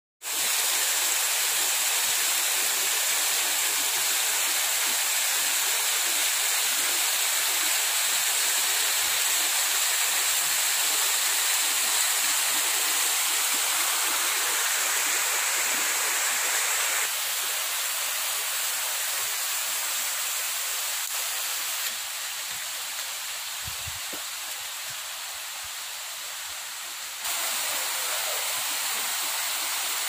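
A small waterfall spilling over rocks into a stream: a steady rushing hiss of water. It gets somewhat quieter a little past halfway and again about two-thirds through, then comes back up near the end.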